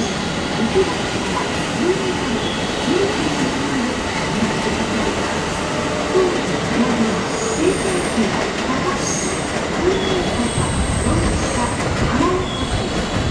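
Electric passenger train running through a station at low speed, a steady rumble with thin high wheel squeals, mostly in the second half.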